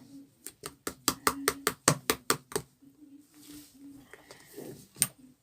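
Slime being squeezed and pressed by hand, making a quick run of crisp clicking pops, about five a second for about two seconds, then one more sharp pop near the end.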